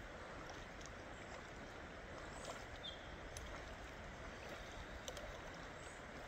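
Faint swishing and stirring of river water as a person wades waist-deep across it, with a couple of brief high chirps.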